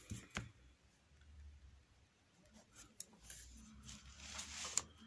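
Faint scratching of a pen writing on paper, with a few soft clicks and a sharper tick near the end.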